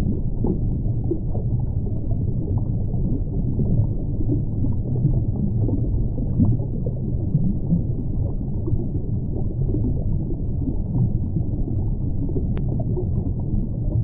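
Underwater ambience: a steady, muffled low rumble of moving water with no distinct calls. A single sharp click comes near the end.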